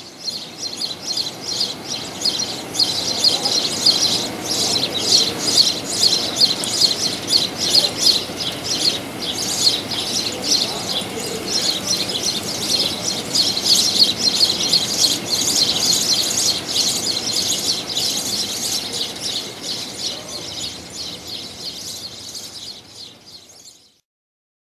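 A flock of small birds chirping, a dense, continuous chatter of short high chirps that fades in at the start and out near the end.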